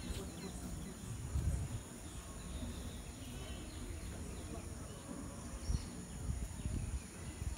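Outdoor ambience: wind buffeting the phone's microphone in irregular low gusts, strongest about a second and a half in and again near six seconds, with faint bird chirps and a steady high insect hum.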